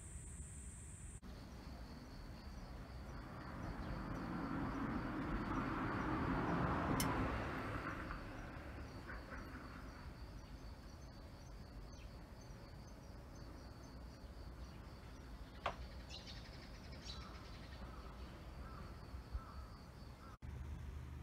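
Outdoor ambience: a steady high-pitched insect trill and a few bird chirps. A broad rushing sound swells and fades a few seconds in and is the loudest part.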